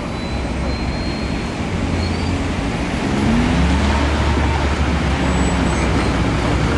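Road traffic passing at a street crossing: a steady rumble of vehicle engines and tyres, growing louder about three seconds in as a vehicle's engine rises in pitch.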